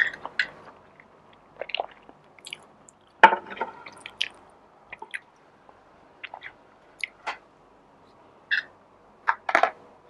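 Close-miked eating sounds: chewing with wet mouth clicks and smacks at irregular intervals, the loudest about three seconds in and a few more near the end.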